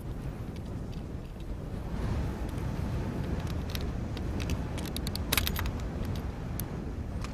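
Light clicks and a sharper clatter about five seconds in, from parts and tools being handled while an air horn is mounted, over a steady low rumble.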